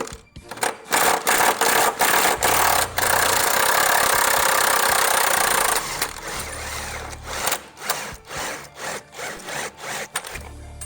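Power tool on a 21 mm socket undoing the bolts of a Mercedes Vito's rear shock absorber. It runs in short bursts, then steadily for a few seconds, then in a string of short bursts again.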